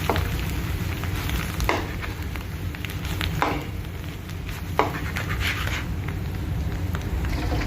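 Potatoes frying in a pan with a steady sizzle, a spatula stirring and scraping against the pan a few times.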